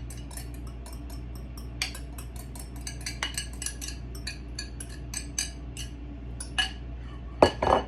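A utensil clinking and tapping against a bowl and pot while sauce is poured and scraped out: a quick run of small clicks, with a louder knock near the end.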